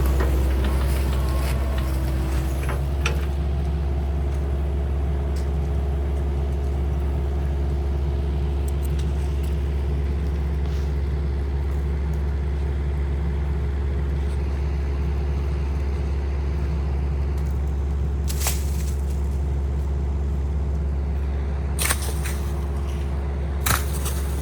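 Kubota KX-030 mini excavator's engine running steadily, with a few short sharp clanks near the end.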